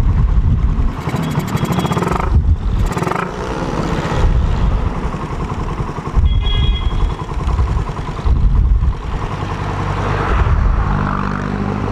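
Suzuki Raider 150 single-cylinder engine breathing through a 28 mm flat-slide carburettor, the throttle opened and closed in several surges while the bike rolls slowly. It picks up and holds steady without bogging.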